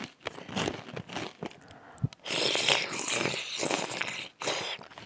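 Close-miked eating on a headset microphone: crunching on fried squid and shrimp, then a loud slurp of about two seconds, taking cold squid mulhoe from a spoon, and a shorter slurp just after.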